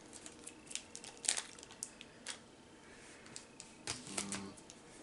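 Scattered light clicks and crinkles of plastic candy packaging being handled and opened, the loudest click about a second in.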